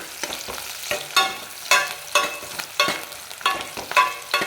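A spoon scrapes and knocks against a heavy-bottomed pan, about twice a second, stirring sliced onions and curry leaves sizzling in hot oil as they turn brown.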